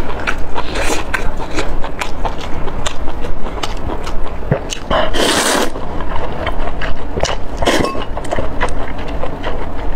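Close-miked eating sounds: wet chewing and lip smacks with many small clicks, and a loud slurp about five seconds in, with a shorter one near eight seconds.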